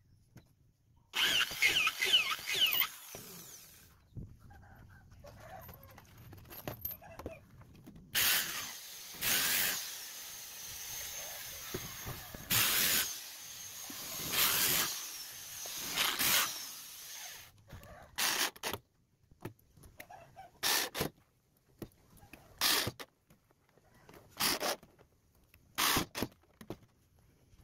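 Power drill running in bursts while drilling into and driving screws into palm-wood boards: a longer run in the middle, then a series of short trigger pulses near the end. Chickens cluck in the background.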